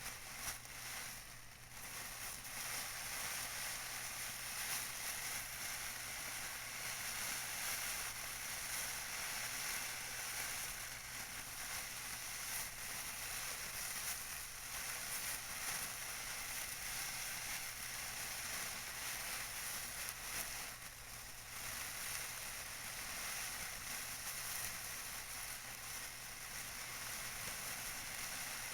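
Tissue paper being crinkled and rustled by hand, a continuous dense crackling that sits mostly in the high pitches.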